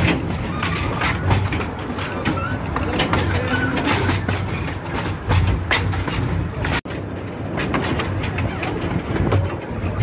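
Steam train running along the line: a steady rumble and rattle of the moving train with frequent clicks and knocks from the wheels on the rails. The sound drops out for an instant about seven seconds in.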